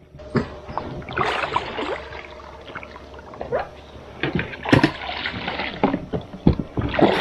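Oars working an inflatable boat into the bank: irregular splashes, scraping and hollow knocks of the oars and hull, with a few sharper bumps in the second half.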